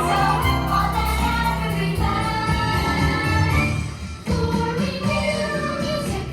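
Christmas parade music with a choir singing, with a brief dip in loudness about four seconds in.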